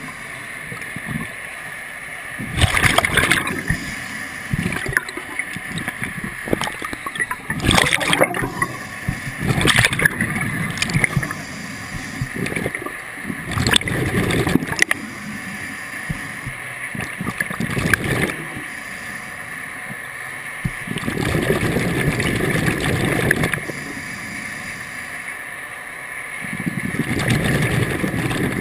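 Scuba diver breathing through a regulator underwater: exhaled bubbles gurgling in bursts every few seconds, the longest two in the second half, heard through the camera's underwater housing.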